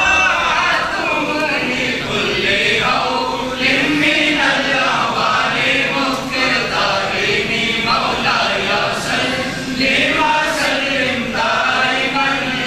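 A crowd of men chanting a devotional recitation together in unison, unaccompanied, the melody rising and falling in long phrases.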